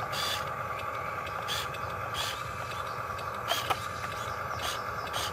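Remote-control model truck running: a steady mechanical hum with short sharp ticks about every two-thirds of a second.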